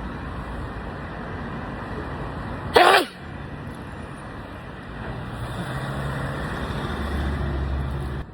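A single loud human sneeze about three seconds in, short and sharp, with a pitch that falls as it ends. It sits over a steady background noise that grows a little louder near the end.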